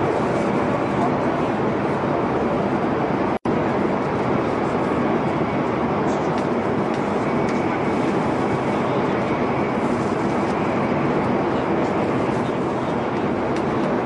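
Steady rumble and rush of a metro train running at speed. The sound drops out for an instant about three and a half seconds in.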